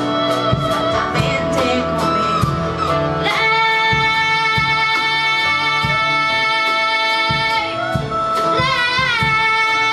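Live band playing a slow ballad, with a girl's voice singing over it and drums keeping a steady beat. Long held notes fill the middle, and a wavering phrase comes near the end.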